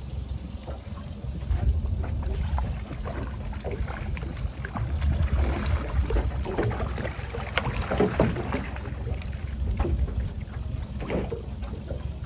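Wind buffeting the microphone and water washing against a boat's hull, a low rumble that swells and fades, with scattered knocks and clicks from handling on deck.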